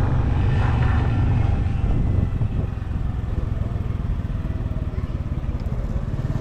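Road vehicle engine running with a steady low rumble, easing a little about two seconds in.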